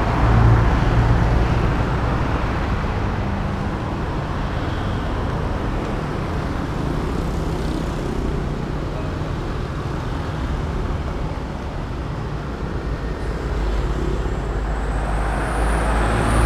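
Road traffic going by: motor vehicles passing in a steady rumble, louder just after the start and again near the end.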